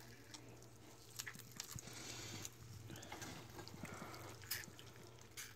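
Faint wet crunching and squishing as a knife works through a roast turkey's leg joint and the leg is pulled away from the carcass, with scattered small clicks.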